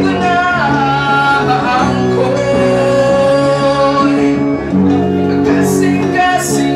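Live duo: two electric guitars playing chords under a man singing a Cebuano ballad, with one long held note near the middle of the phrase.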